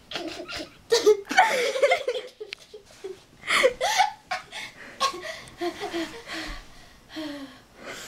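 A girl laughing in uncontrolled fits, in uneven bursts, loudest about a second in and again about three and a half seconds in.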